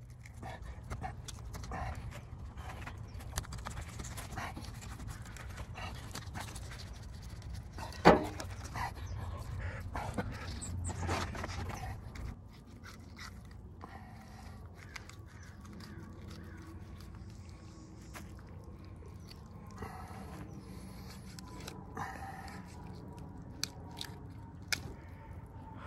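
Knife cutting and scraping along a sea bass carcass laid on a towel, with handling clicks and one loud knock about eight seconds in. A low rumble lies under the first half and fades out about twelve seconds in.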